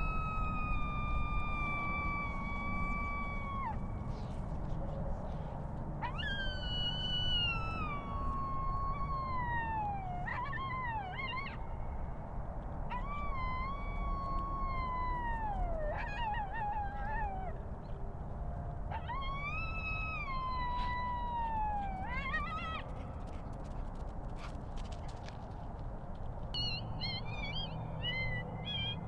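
Coyote howls: a series of long, drawn-out calls, each sliding down in pitch, some ending in a short wavering rise. Near the end come quicker, higher yipping warbles. A low wind rumble runs underneath.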